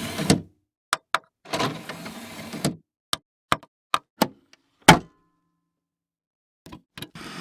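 A sequence of sharp mechanical clicks from a piece of electronic equipment, with two short whirring or rushing noises early on, the loudest click about five seconds in, then a pause and a few faint clicks near the end.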